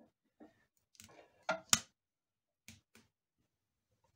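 Cast-iron firebox door of a Radan 16 kW coal boiler being swung shut and latched by its handle: a handful of short metallic knocks and clicks, the loudest just under two seconds in.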